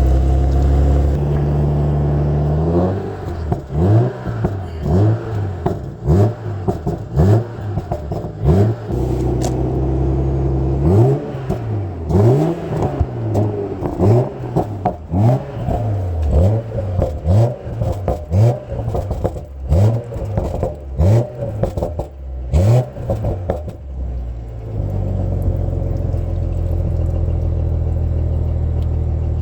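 BMW X7's engine idling, then revved in a long series of quick throttle blips, about one a second, each pitch rising and dropping back. After some twenty seconds of blipping it settles back to a steady idle.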